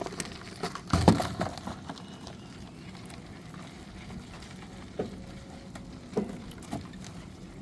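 Scattered knocks and clatter of something being handled: a quick cluster about a second in, then single knocks a few seconds later, over a steady low background.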